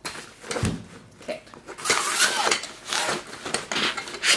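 A black nylon carrying case rustling as hands move it about in a cardboard box, in a few short spells, the loudest about two seconds in and again near the end.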